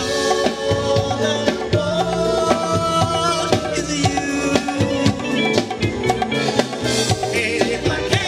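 Latin rock band playing live, with timbales and drums, electric guitar and bass under a male lead singer.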